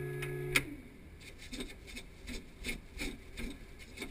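A steady electrical hum cuts off with a sharp click about half a second in. Then comes an even run of short scraping strokes, about three a second: a hand pump being worked, typical of priming the Spitfire's Merlin engine before start.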